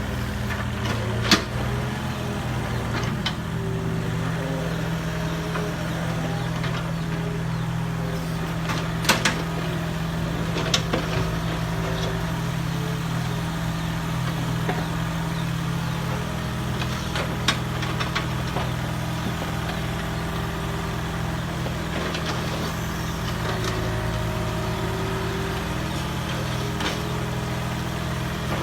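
Mini excavator engine running steadily, with a few sharp knocks scattered through.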